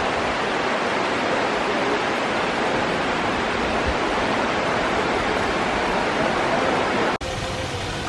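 Steady rushing roar of a waterfall, an even wash of falling water with no pauses; it cuts out for an instant about seven seconds in and then carries on slightly softer.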